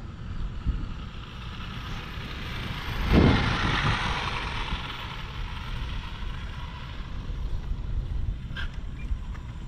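Arrma Limitless 8S RC speed-run car passing at high speed, its jet-like whine swelling to a peak about three seconds in, then fading as it runs away. Wind buffets the microphone with a steady low rumble throughout.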